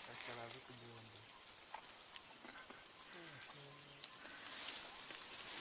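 Steady, high-pitched chorus of forest insects droning without a break, with a few faint low sounds near the start and again about three and a half seconds in.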